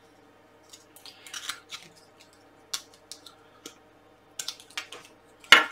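Scattered light clicks and small rattles of handling: 18650 lithium-ion cells being taken out of a plastic battery holder and a USB cable being handled.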